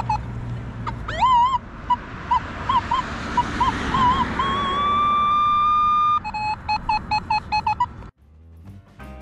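Metal detector audio from a Nokta Legend working a signal the hunter reads as a penny: a quick run of short high beeps, then a wavering tone that rises and settles into a steady high tone for about two seconds, then more short beeps. Just after eight seconds it cuts off and background guitar music begins.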